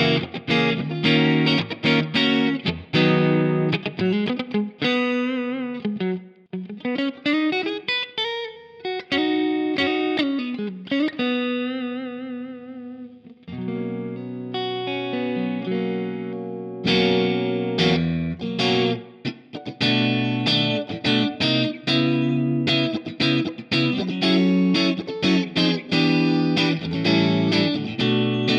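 Fender Player Stratocaster electric guitar played through an amplifier with effects. Quick picked riffs give way to sliding, bent notes with vibrato, then to ringing sustained chords about halfway through, before rhythmic picking resumes.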